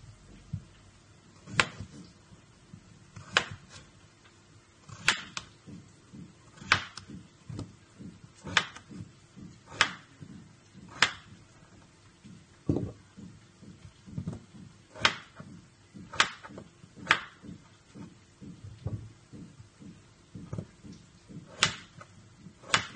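Kitchen knife chopping peeled raw potatoes on a plastic cutting board: a sharp knock as the blade hits the board with each cut. The knocks come irregularly, a second or two apart, with a few longer pauses.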